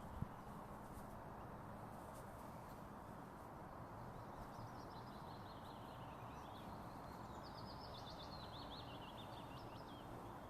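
A songbird singing a run of quick, high chirps and trills over a faint, steady background hiss, starting about halfway through.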